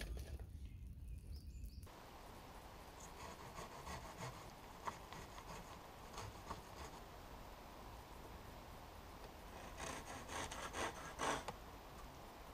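A hand saw blade rasping against a wooden shelter pole in short, scattered strokes, with a quicker run of strokes near the end.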